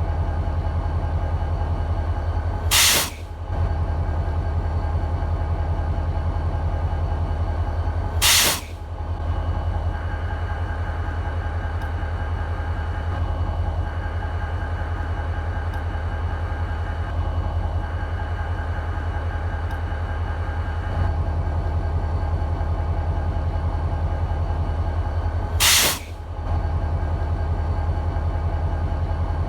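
EMD SD40-2 diesel locomotive's 16-cylinder two-stroke engine idling steadily with a low, even drone. Three brief, sharp hisses of air cut in over it: near the start, about eight seconds in, and near the end.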